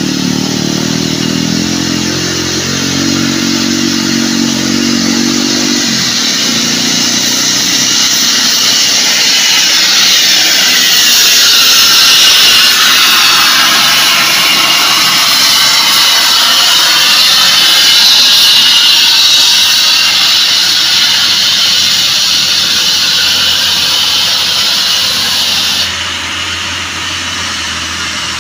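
Tadano mobile crane truck's diesel engine working under load through a hairpin climb, with a loud jet-like whine over the engine that is likened to an aircraft; the whine rises and falls in pitch and drops off abruptly near the end.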